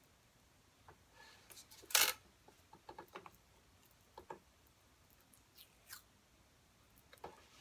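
Masking tape being pulled off its roll and pressed by hand around a wooden didgeridoo: scattered crackles and light ticks, the loudest a short crackle about two seconds in.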